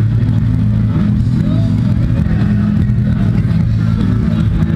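Crowd of people talking over loud amplified music with a heavy, steady bass.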